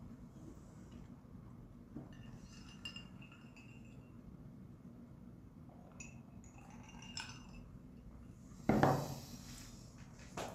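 Tableware handled on a table during a meal: a few light clinks, then a louder knock near the end, as of a cup being set down.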